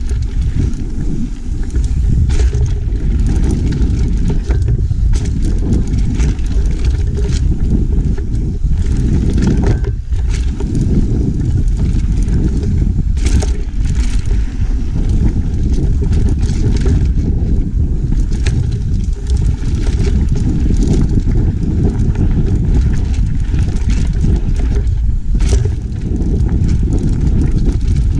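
Mountain bike ridden fast down a dirt singletrack: a continuous loud low rumble of wind on the handlebar-mounted camera microphone and tyres on the trail, with frequent short knocks and rattles from the bike over bumps.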